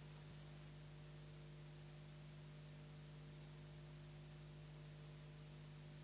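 Near silence: a steady electrical hum with faint hiss, the background noise of an old broadcast recording.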